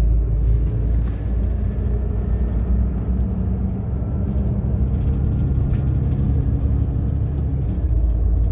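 Steady low rumble of a bus on the move, heard from inside the cabin: engine drone and road noise.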